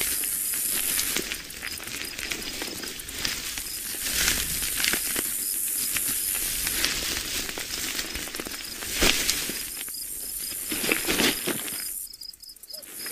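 Dry crackling and scratching full of small clicks, given as the sound of a dung beetle, with a faint high chirp repeating evenly through it. It thins out near the end.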